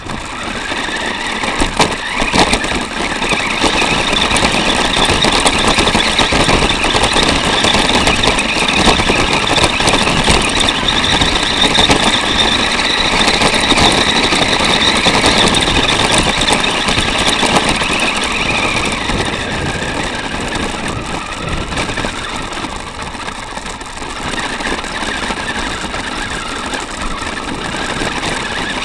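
Electric motor and gears of a 4x4 RC car whining while it drives, its tyres crunching over beach shingle. The noise starts abruptly as the car sets off, then runs loud, with the whine wavering as the speed changes.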